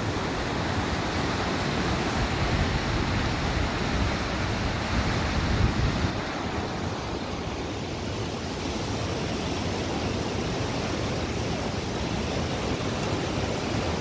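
Steady rush of white water churning over rock rapids, with a low rumble of wind on the microphone; the hiss dulls slightly about six seconds in.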